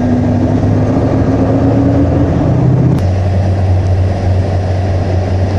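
Bus engine and road noise heard from inside the cabin, a steady low drone. About three seconds in there is a click and the drone settles to a lower pitch.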